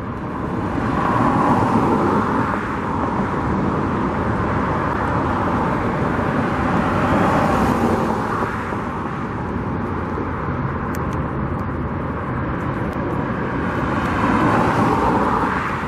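Road traffic going by, a steady noise that swells three times as vehicles pass.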